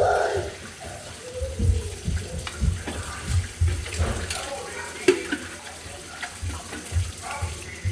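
Water running from a kitchen tap, with scattered low thuds and a few sharp clicks.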